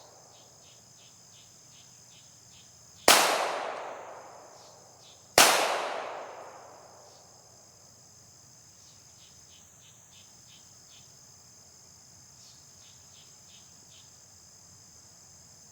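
Two pistol shots a little over two seconds apart, each a sharp crack followed by a long decay, with insects chirping steadily underneath.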